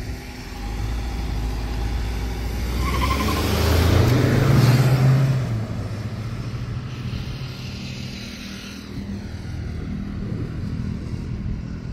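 Two cars, an SUV and a sedan, accelerating hard side by side in a drag race. The engine note rises and is loudest about four to five seconds in as they go by, then fades as they pull away.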